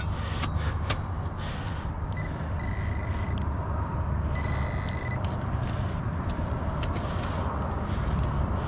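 Metal detector target tone: two steady, high beeps, each just under a second long and about a second apart, over a steady low rumble with a few short clicks.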